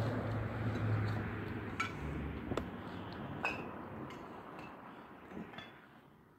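A steady low rumble that fades away, with three light ringing clinks in its first half.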